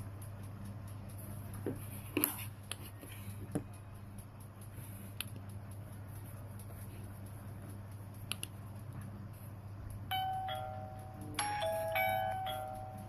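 Doorbell chime playing a short ding-dong melody of several pitched notes, starting about ten seconds in, over a low steady hum. A few faint clicks come earlier.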